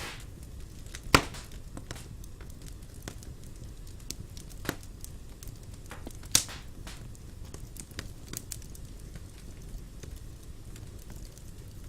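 Wood fire burning in a fireplace, with a steady low rumble and scattered crackles and pops, the sharpest about a second in and again near the middle.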